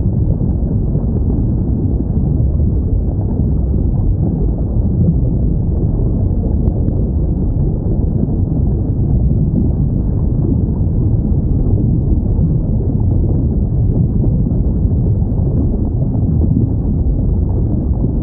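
Steady, low underwater ocean rumble from a whale-sound recording, with no whale call heard.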